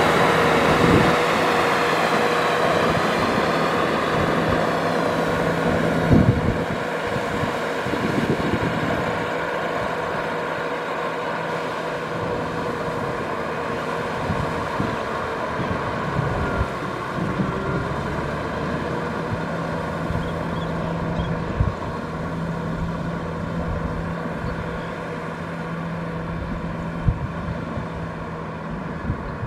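Tractor engine running steadily, its pitch dipping briefly about two-thirds through as if under load, with a few scattered thumps.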